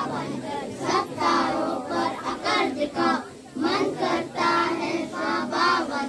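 A group of young children singing together, with held notes between shorter phrases.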